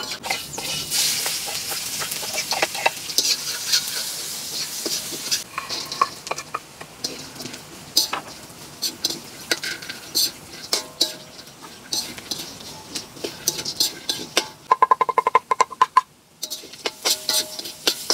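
Frying in a steel wok: hot oil sizzles, then a metal spatula scrapes and clinks against the wok as fried peanuts are tipped in and stirred. About three quarters of the way through comes a quick metallic rattle with a ringing tone, lasting about a second.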